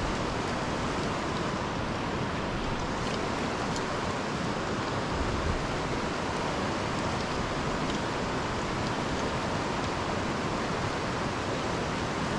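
River water running steadily over a rocky riffle into a pool: a constant, even rushing.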